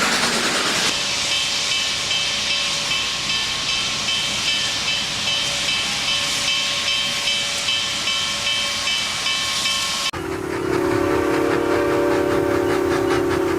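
Steam locomotive sound effect: steady steam hiss with a faint regular pulse. About ten seconds in it cuts abruptly to a long, low steam whistle blast lasting about three and a half seconds.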